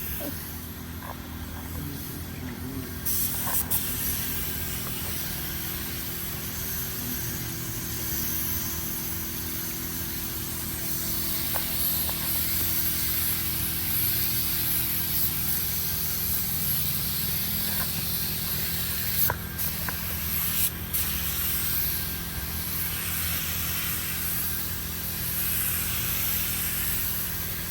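Air-powered paint spray gun hissing steadily as paint is sprayed onto a car's body, over a steady low hum. Two brief clicks sound about two-thirds of the way through.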